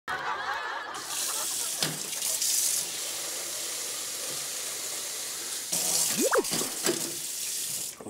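Tap water running from a pull-down kitchen faucet into a plastic water bottle, a steady rushing hiss starting about a second in. A brief high squeak rises and falls a little after six seconds in.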